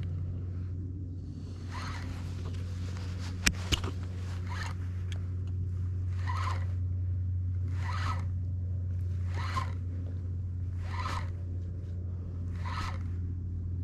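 Spinning reel being cranked in short spurts about every second and a half, a brief buzzing whirr each time as the lure is retrieved. There are two sharp clicks about three and a half seconds in, over a steady low hum.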